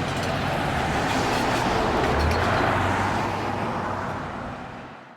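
A road vehicle passing by: its noise swells to a peak about halfway through, then fades away, and the sound cuts off abruptly at the end.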